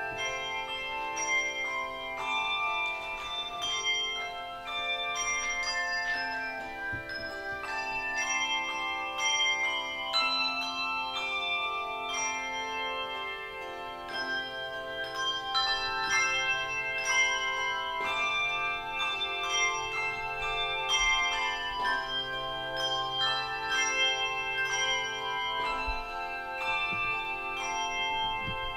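Handbell choir playing a piece: many tuned handbells rung together in chords, each note struck and left ringing, so the notes overlap throughout.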